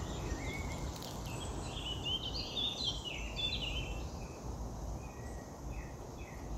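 A small songbird singing in woodland: a run of quick high chirps and trills in the middle, then a few short falling notes near the end, over a low steady rumble.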